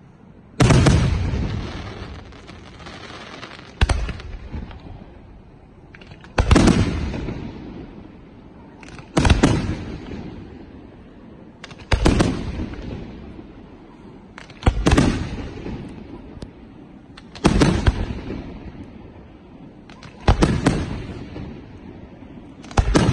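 Aerial fireworks shells bursting in a steady sequence: a loud bang about every three seconds, nine in all, each trailing off in a long fading echo.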